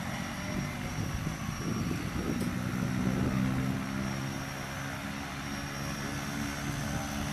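Single-engine propeller jump plane running on the ground, a steady engine-and-propeller drone whose hum settles in about two seconds in.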